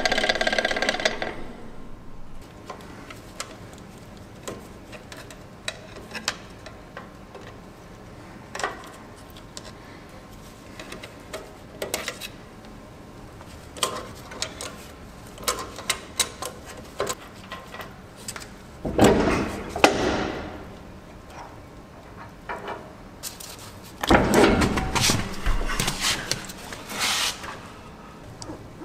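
Hand tools clicking and clinking on a trailer wheel hub as it is taken apart. Two longer, louder stretches of metal scraping and knocking come later, as the wheel and its brake drum are worked off the axle spindle.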